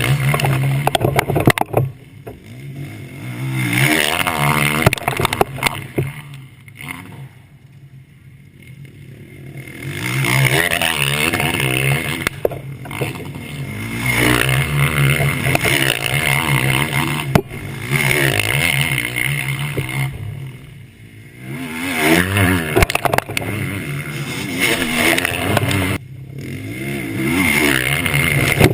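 Motocross bikes racing past, engines revving hard and changing pitch through the gears. The sound swells as bikes come by and fades between them, several times over.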